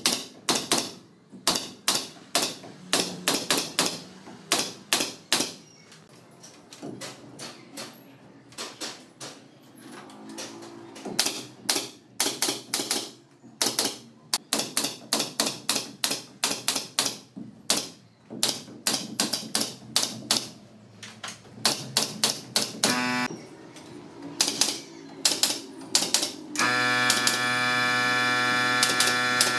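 Quick, uneven runs of sharp, typewriter-like clicks, two to four a second. Near the end a steady hum with several pitched tones begins.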